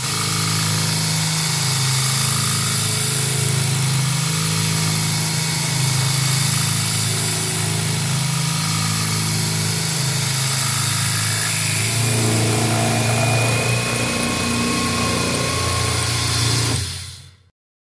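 CNC milling machine's spindle and end mill cutting a metal pulley: a loud, steady machining noise over a low hum. The sound changes about twelve seconds in and cuts off suddenly near the end.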